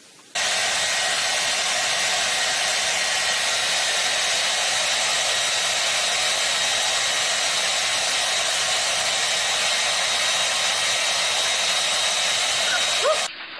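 Handheld hair dryer running steadily at full blast, an even rush of air with a thin high whine over it. It starts abruptly about half a second in and cuts off just before the end.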